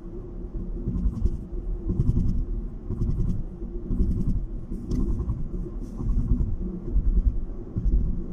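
Low rumble of a car driving at highway speed, heard from inside the car, with a steady hum over it. Faint short clicks come roughly once a second.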